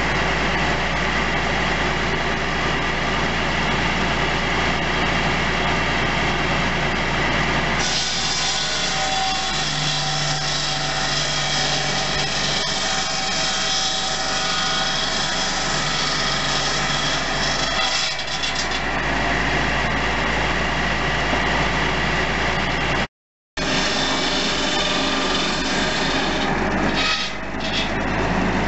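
Massey Harris 744 tractor engine running steadily, driving a circular saw bench by flat belt. From about eight seconds in, the blade cuts through wood for roughly ten seconds, adding a high, rasping sawing sound over the engine, then the saw runs free again.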